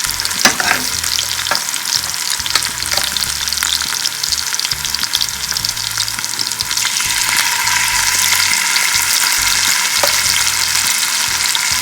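Coated barramundi pieces frying in hot oil in a pan: a steady sizzle with scattered crackles and small ticks, growing louder about two-thirds of the way through.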